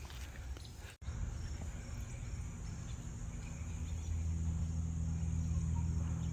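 Low engine rumble of a passing vehicle, growing louder about four seconds in, over a steady high chirring of insects.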